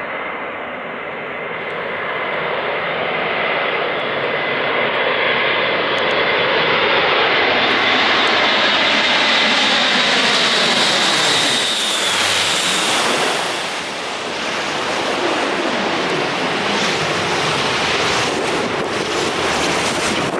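Airbus A400M Atlas's four TP400-D6 turboprop engines as it flies a low pass. A steady drone builds to its loudest near the middle, and a high whine drops in pitch about twelve seconds in as the aircraft goes by.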